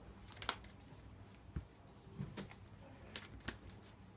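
Trading cards being handled and set down on a table: a handful of light, separate clicks and taps.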